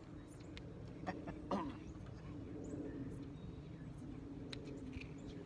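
Quiet outdoor background: a low steady hum with a few small clicks and a brief faint voice about a second and a half in.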